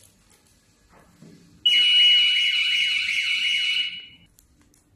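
Conveyor food metal detector's alarm sounding a high-pitched steady tone with a rapid warble, starting under two seconds in and lasting about two and a half seconds: it has detected the 1.2 mm stainless steel test piece passing through with the sugar snacks.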